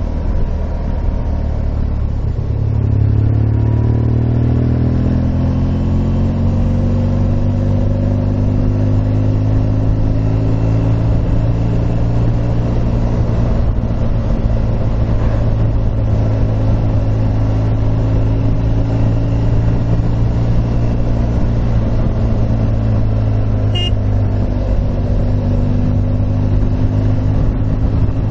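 Motorcycle engine under way: the revs climb about two to five seconds in, then it runs at a steady cruise.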